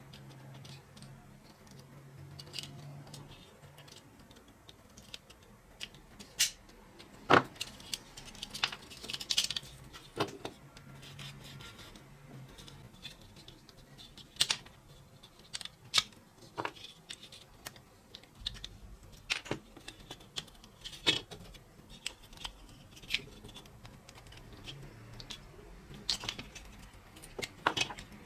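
Irregular clicks and light metallic taps of small metal parts and hand tools being handled, a dozen or so sharper knocks standing out among fainter ticks.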